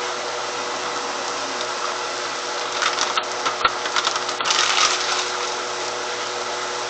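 Kitchen handling sounds over a steady hiss and low hum: a short run of crackling, rustling clicks from about three to five seconds in, as cheese is being added to the fajita pie.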